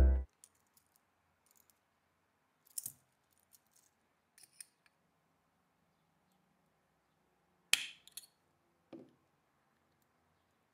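A few light, sparse metallic clicks and taps of tools and small parts on a wristwatch being opened up, the loudest a sharp click about eight seconds in, with near silence between. Music cuts off at the very start.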